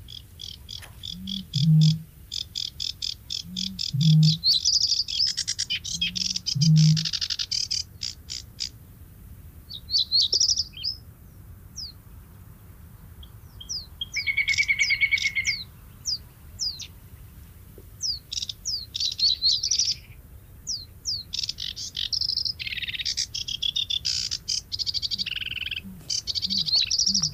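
Eurasian bittern booming: three deep, short hoots about two and a half seconds apart in the first seven seconds, each with a faint lead-in note. Small songbirds sing fast chattering and trilling songs throughout.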